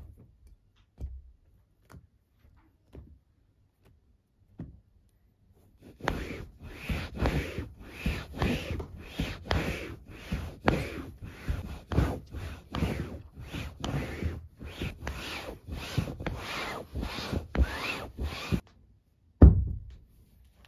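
A damp towel stretched over a pot lid rubbed back and forth across a fabric sofa cushion, in quick scrubbing strokes about two a second. A few faint taps come before the scrubbing starts, and there is a single thump near the end.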